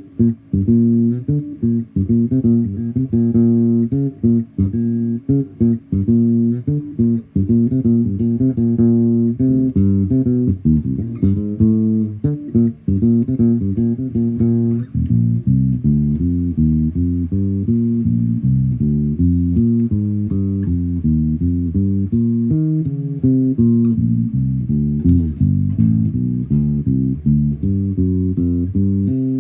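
Tobias Growler electric bass guitar played fingerstyle, a continuous line of plucked low notes. About halfway through, the playing becomes smoother and more even.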